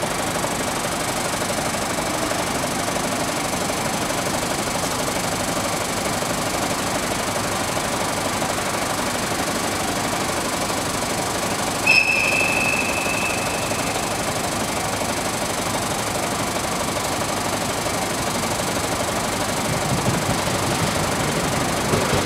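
Two DD51 diesel-hydraulic locomotives working in tandem, their diesel engines running with a steady rumble. About halfway through, a single high tone sounds for about a second and a half.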